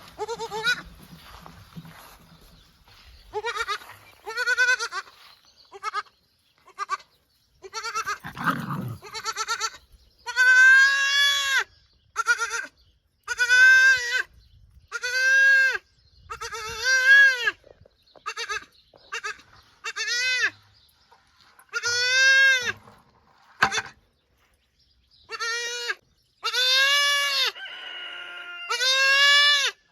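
Young Boer goat kid bleating over and over, each call about a second long and arching up then down in pitch. The calls are fainter at first, then come loud every second or two from about a third of the way in.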